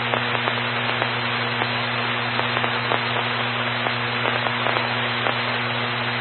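Radio static with no voice coming through: a steady hiss full of frequent crackles over a low hum.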